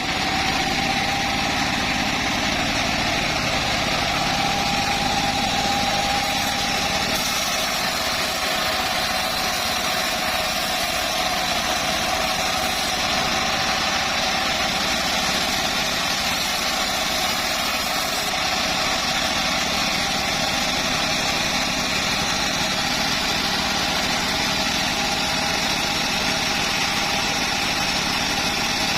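Homemade bandsaw mill running steadily, a constant machine drone with a high whine that sags slightly and recovers.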